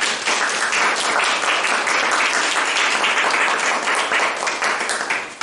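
An audience applauding: steady, dense hand-clapping.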